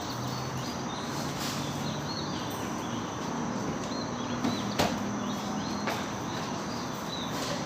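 Outdoor ambience: a steady noisy background with small birds chirping faintly several times, a low wavering hum, and a few sharp clicks, the loudest about five seconds in.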